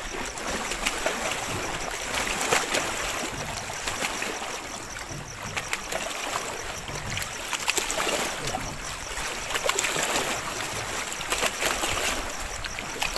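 Small lake waves lapping at the shore, a rushing sound that swells and fades every few seconds, with scattered small clicks and ticks.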